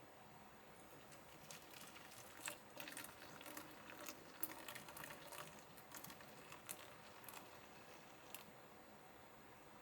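Faint, irregular small clicks and rustles, starting about a second in and thinning out near the end.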